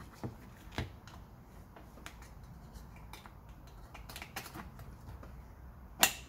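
Scattered plastic clicks and knocks as a Dyson vacuum battery's plastic casing is worked on by hand, which does not want to come apart. One sharp, louder click comes near the end.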